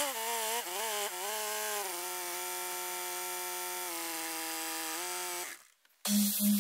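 Case 4230 tractor running with its front-loader hydraulics working as the loader lifts and tips a heavy topper, a steady whine. The whine's pitch jumps and wavers in the first two seconds as the load comes on, then holds steady. It fades out about five and a half seconds in, and music starts just before the end.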